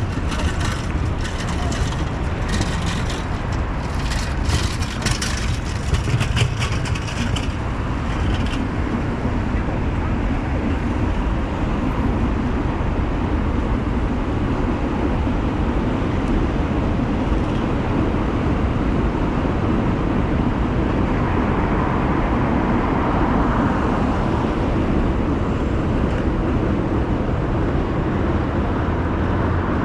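Busy city street ambience: steady road traffic noise from passing cars, swelling as a vehicle goes by about three quarters of the way through. A patter of sharp clicks runs through the first several seconds.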